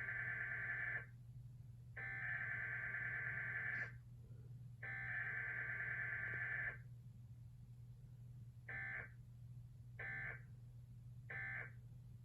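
Emergency Alert System digital data tones from a Comcast/Xfinity Required Weekly Test. The first header burst ends just after the start, two more buzzing header bursts of about two seconds each follow a second apart, and three short end-of-message bursts come near the end. There is no attention tone between them, and a steady low hum runs underneath.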